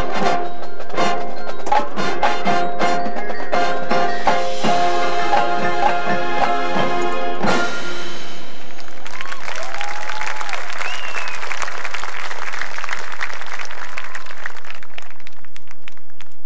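Marching band music with marimba and other mallet percussion over sustained chords, ending on a loud hit about seven and a half seconds in. Audience applause follows and fades near the end.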